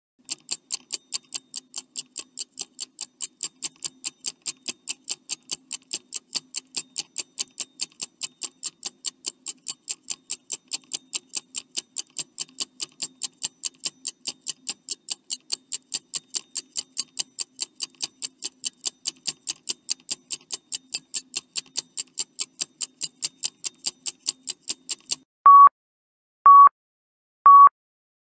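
Countdown-timer sound effect: a clock ticking evenly, about three ticks a second, then three short electronic beeps a second apart near the end, signalling that time is running out.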